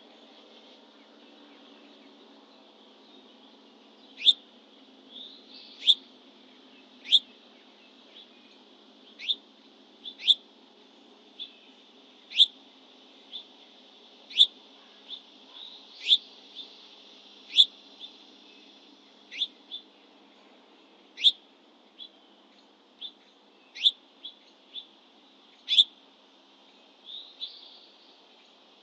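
A songbird giving sharp single chip notes over and over, roughly one a second, each a quick downward sweep, over a faint steady high hum.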